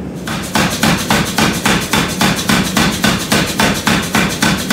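Power hammer striking a red-hot steel bar in a steady run of heavy blows, about four a second, starting just after the beginning.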